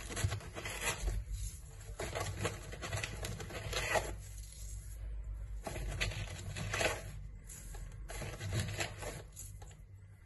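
Irregular light clicks, taps and scrapes of kitchen things being handled around a stainless steel mixing bowl, with a few small metallic clinks, over a faint low hum.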